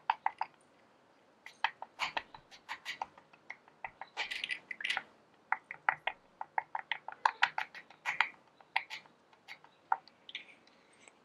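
Light, irregular clicking and ticking of salt grains as a Bug-A-Salt SHRED-ER cartridge is filled with salt by hand, with short pauses between runs of clicks.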